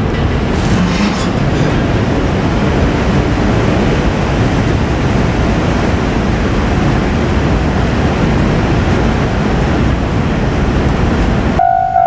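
JR Freight train hauled by an EF510 electric locomotive running past, a loud steady rumble of wheels on rails. About half a second before the end it cuts off suddenly and a steady ringing tone takes over.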